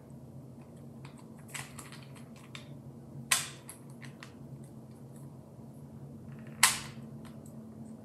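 Rubik's Clock puzzle being worked by hand: a few light plastic clicks, and two sharp, louder clicks about three seconds apart.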